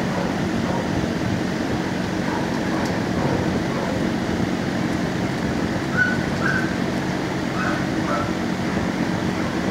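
Steady din of a shelter kennel room: a ventilation hum under the echoing barking of other kenneled dogs, with a few short higher yelps about six to eight seconds in.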